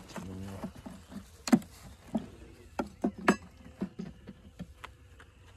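Wooden beehive frames and a metal hive tool knocking and clicking against the hive box as the frames are handled. About ten separate sharp knocks, the loudest a little past three seconds in.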